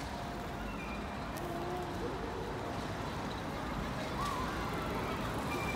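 Steady outdoor street ambience: a low, even hum of distant traffic.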